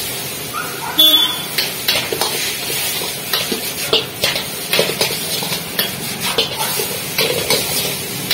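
Metal ladle and spatula scraping and clanking against an iron wok as noodles are stir-fried, with a louder clang about a second in, over the sizzle of the frying noodles.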